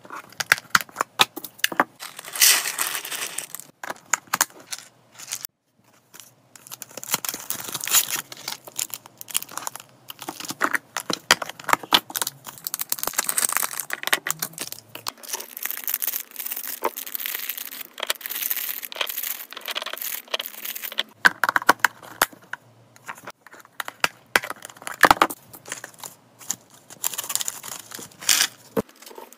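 Plastic treat packaging crinkling and rustling as it is handled, with sharp clicks. Near the end a plastic storage container's clip lid snaps shut.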